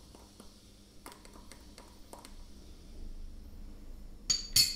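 Quiet kitchen handling: a few faint clicks of utensils, then two sharp clinks near the end.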